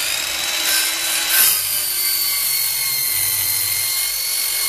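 Bosch cordless circular saw running at full speed and crosscutting a 2x4: a steady high whine of the blade with the rasp of the cut through the wood.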